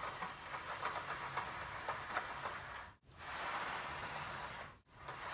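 Cordless horizontal blinds being pulled down by the bottom rail: the slats rattle with many small clicks as they unstack. The sound cuts out abruptly twice, for a moment each time.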